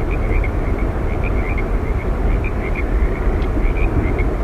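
Yosemite Falls, a waterfall, sending up a steady roar of falling water with a deep rumble. Short high chirps repeat irregularly throughout.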